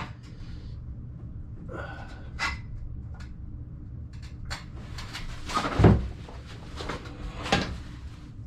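Clicks and knocks from a shower-door wall rail being handled and set against the wall, with two louder thumps, one about halfway through and one near the end, over a low steady hum.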